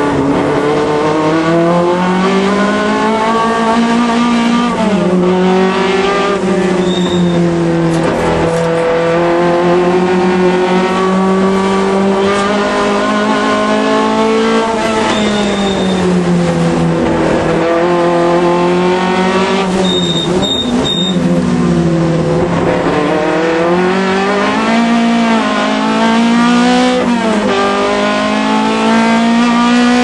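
Alfa Romeo Alfasud race car's flat-four engine at racing speed, heard from on the car. The revs climb and drop again and again through gear changes and corners, with a few short high squeals.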